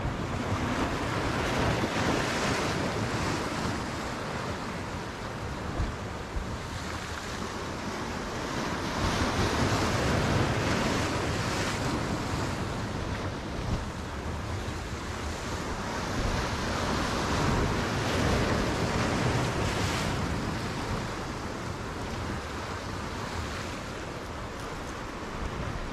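Sea waves breaking and washing over shoreline rocks, the surge rising and falling as each wave comes in, with wind buffeting the microphone.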